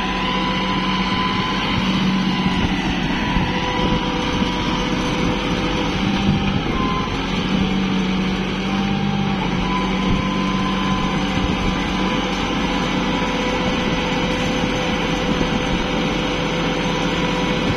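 Farm tractor engine running steadily, the tractor working in deep mud, with a constant low hum.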